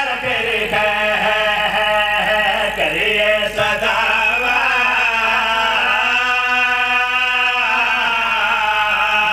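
Men's voices chanting a slow, drawn-out sung refrain over a microphone, with long held notes: the melodic refrain of a zakir's majlis recitation.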